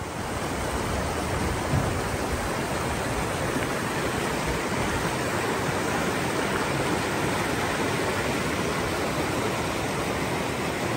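Thompson River water rushing in a steady, even noise, with a brief low thump about two seconds in.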